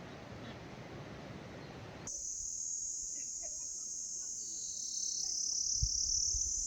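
A steady rushing hiss cuts off about two seconds in, replaced by a dense, steady, high-pitched insect chorus, with a few faint chirps beneath it and some low thumps near the end.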